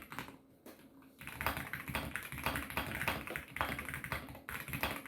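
Rapid typing on a custom-built GMK67 mechanical keyboard: a few scattered keystrokes, then a fast, continuous run of key clicks from about a second in.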